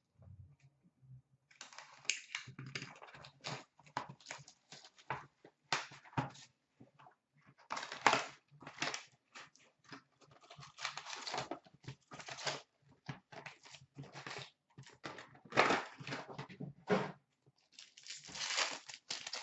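A sealed box of trading cards torn open by hand, its cardboard lid folded back, and the foil card packs inside rustling and crinkling as they are pulled out and handled. It is a busy run of irregular crackles, tears and rustles, loudest about eight seconds in and again near the end.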